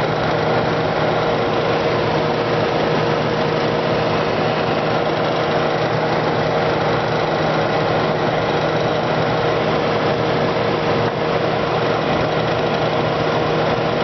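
Kenmore Model 5925 dehumidifier running: its Embraco compressor hums steadily under the even rush of the fan.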